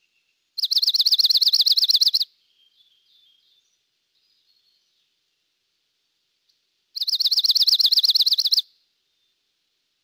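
Dark-eyed junco singing two rapid, even trills of high notes on one pitch, each just under two seconds long, about six seconds apart. A few faint soft notes come between them.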